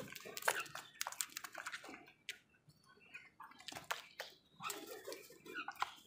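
House crows pecking food from a plastic bowl: irregular light taps and clicks of beaks on the bowl and the food.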